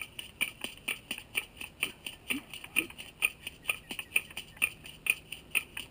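Ceremonial hand percussion keeping a steady beat: sharp, bright clicks at about four a second.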